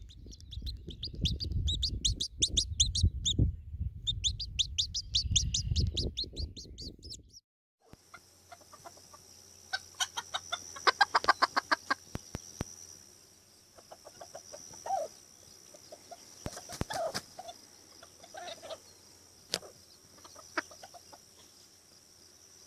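Chickens calling: at first rapid runs of high, thin peeps over low rumbling noise. After a sudden cut, scattered low clucks and short bursts of calls follow over a faint steady high-pitched whine.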